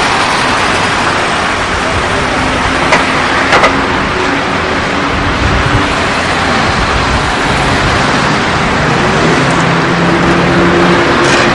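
Road traffic: car engine and tyre noise over a steady hiss, the engine note shifting in pitch. Two short clicks come about three seconds in.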